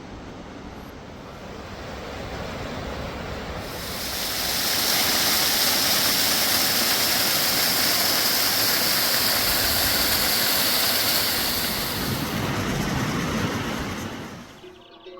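Steady rush of fast-flowing water, such as a waterfall or rapids, swelling up over the first few seconds and fading out near the end.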